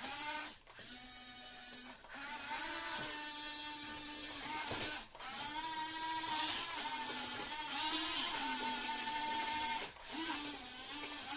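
Small electric gear motors of a 1/14-scale Top Race RC excavator whining as they drive its arm and bucket, in runs of a few seconds with brief pauses between them, the pitch shifting slightly as the load changes.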